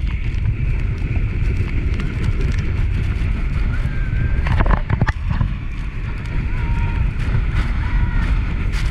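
Steady low rumble of wind on the microphone and a motorboat engine on open water, with faint distant voices and a few sharp knocks about five seconds in.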